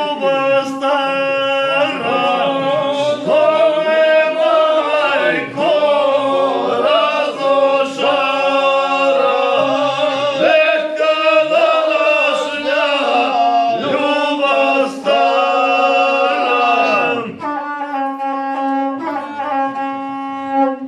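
Several men singing a folk song together, one low note held steady beneath the bending melody. The singing eases off in the last few seconds and stops at the end.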